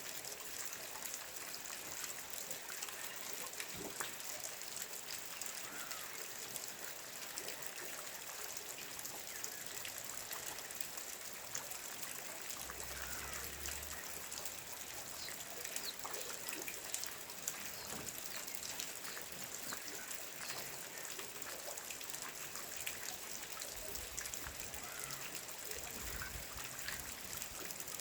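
Steady rain falling, with many separate drop hits over a constant hiss.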